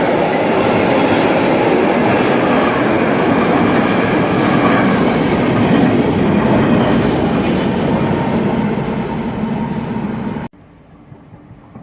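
ÖBB Railjet passenger train rolling past close by, a loud steady rumble of wheels on the rails with some clickety-clack. It eases off slightly, then cuts off suddenly near the end, leaving a much quieter background.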